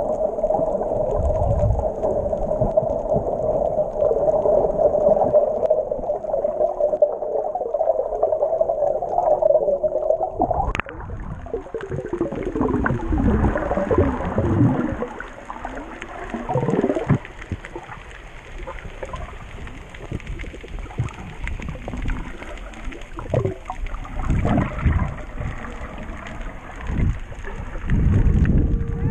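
Muffled underwater sound picked up by a camera in a waterproof housing. A steady wavering hum runs for about the first ten seconds, then a sharp click, and after that gurgling water with short sliding tones.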